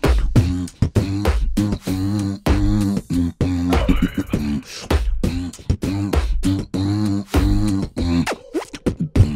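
Beatboxing: rhythmic mouth-made percussion with short pitched vocal sounds on a steady beat, used as a hip-hop jingle.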